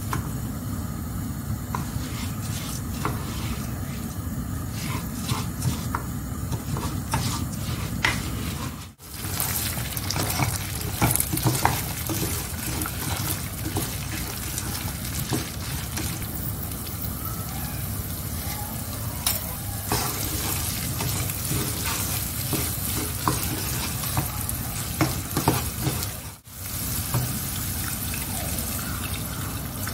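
Food sizzling in a frying pan while a utensil stirs it, clicking and scraping against the pan. The sizzle breaks off briefly twice.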